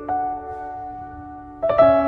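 Soft background music of sustained piano-like keyboard notes, with a new, louder chord coming in about a second and a half in.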